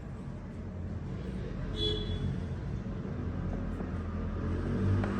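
Steady low mechanical rumble, with a brief high-pitched squeak about two seconds in.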